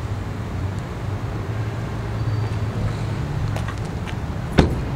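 Steady low vehicle rumble, with a car door slammed shut once near the end.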